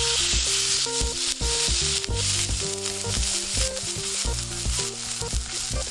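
Beef steak sizzling loudly in a hot Nambu cast-iron skillet, the sizzle starting abruptly and holding steady. Background music of short melodic notes plays underneath.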